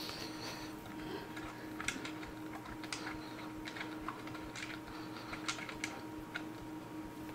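Irregular light clicks and taps of a Stihl 500i chainsaw's sprocket cover and chain being handled as the cover is fitted back over the bar by hand.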